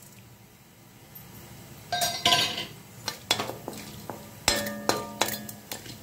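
Slotted steel spatula clinking and scraping against an iron kadai, stirring urad dal in hot oil for a tempering. The first two seconds are quiet, then sharp ringing clinks come in quick succession.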